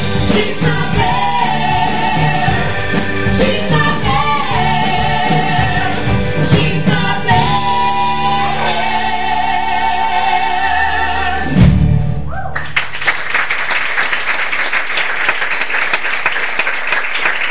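Several voices singing in close harmony with keyboard accompaniment, building to a long held final chord that ends with an accented hit about twelve seconds in. An audience then breaks into applause.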